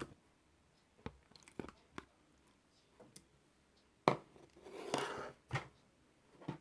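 A few sharp clicks and crunches, then a louder crackling, crinkly rustle about four to five seconds in.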